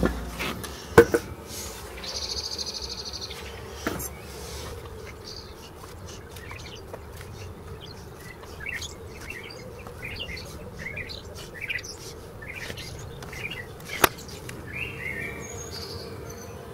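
Small birds chirping in short repeated calls, busiest through the middle and later part, over a steady low hum of honeybees at the hives. A few sharp knocks cut through, one about a second in and another late on.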